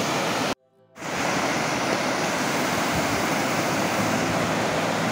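Steady rushing of a river's rapids running with snowmelt as the ice thaws. The sound cuts out completely for about half a second near the start, then resumes.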